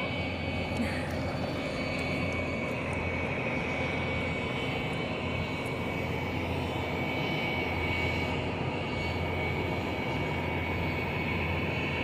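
Steady low drone of a river pusher tug's diesel engine as it pushes a string of barges past.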